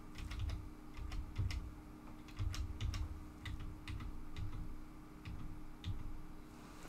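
Computer keys tapped irregularly, about fifteen light clicks with soft thuds in uneven clusters, as on-screen images are flipped through.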